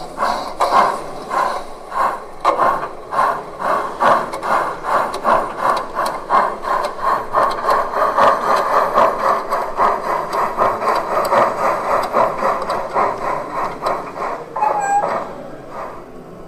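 Steam-locomotive chuffing from the sound electronics of a Gauge 1 model of the DR 18 201, at a steady beat of about three exhausts a second. A short high tone sounds about 15 seconds in, and the chuffing dies away just before the end.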